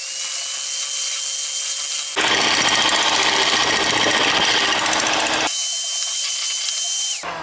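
Electric hand mixer running at high speed, its beaters whisking egg yolks and sugar in a glass bowl until pale: a steady motor whine. It grows louder and fuller for a stretch in the middle and cuts off sharply near the end.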